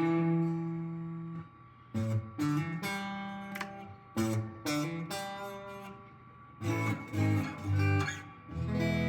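Telecaster electric guitar being played: a chord rings out, then picked notes and chords in short phrases, each left to ring, with a last chord near the end that rings on.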